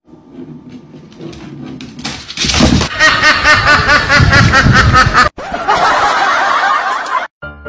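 White domestic duck quacking in a fast run of short, repeated calls that sounds like laughter, loud for about three seconds.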